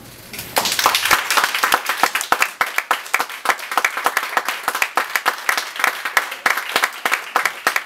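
Theatre audience applauding, the clapping breaking out about half a second in and going on densely.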